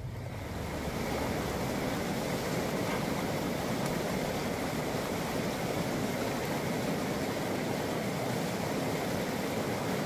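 Steady rush of a stream flowing over rocks, an even hiss of water with no break.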